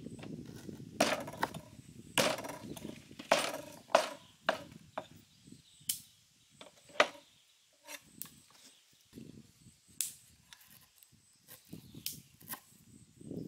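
Large kitchen knife chopping beef ribs on a thick round wooden chopping board: about a dozen sharp, irregular chops, most of them in the first half.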